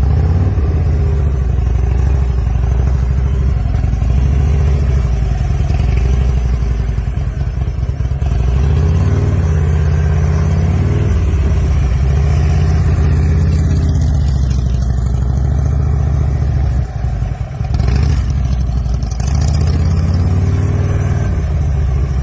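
Motorcycle engine running, its pitch rising and falling a couple of times as the bike speeds up and slows.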